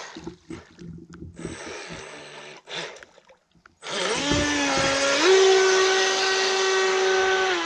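Small waves lapping against a camera at the waterline, then about four seconds in a radio-controlled boat's motor comes in with a loud, high whine. The whine climbs in pitch, steps up again about a second later as the boat runs at speed, and holds steady until it dips slightly at the very end.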